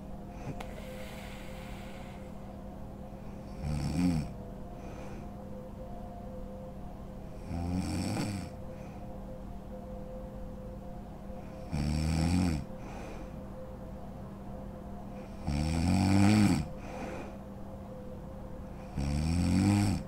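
A sleeping woman snoring: five loud, rasping snores come at a steady rhythm about every four seconds, with quieter breathing between them. A faint steady hum runs underneath.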